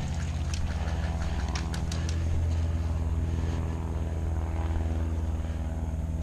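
Steady low drone of a running motor, with a few sharp clicks scattered through the first two seconds.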